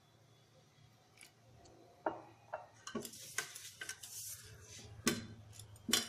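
A hand mixing flour and water into a dough in a stainless-steel bowl. From about two seconds in come scraping and rubbing of the crumbly flour, scattered clicks, and two sharp knocks against the bowl near the end.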